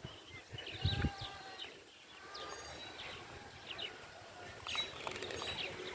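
Birds chirping: many short, high calls, several falling in pitch, scattered throughout, with a brief low rumble about a second in.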